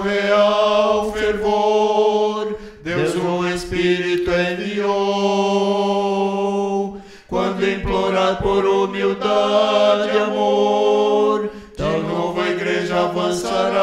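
Male vocal quartet singing a hymn in close harmony, holding long chords in three phrases of about four seconds each, with short breaks between them.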